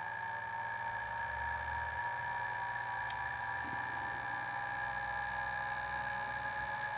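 Small 3D-printed pulse motor running steadily, driven by a Hall-sensor coil circuit, giving a constant high-pitched whine with a fainter low hum underneath. There is one faint click about three seconds in.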